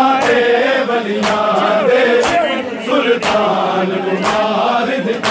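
A group of men chanting a Punjabi noha (mourning lament) in unison, the lines held long. Sharp slaps of hands beating on chests (matam) land together about once a second, keeping the beat.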